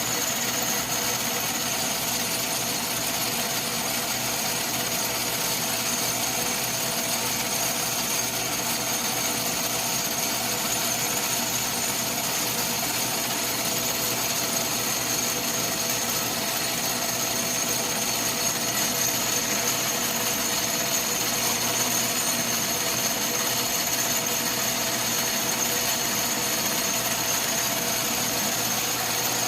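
Atlas metal lathe running steadily while facing an aluminum workpiece, with a constant high-pitched whine over a mechanical hiss.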